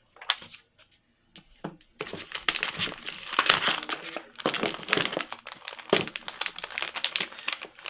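Crinkling of a metallized anti-static bag being handled. A few small clicks come first, then dense crackling starts about two seconds in.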